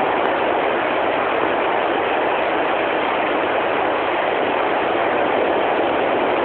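Steady surf of the sea: an even, unbroken wash of waves on the beach.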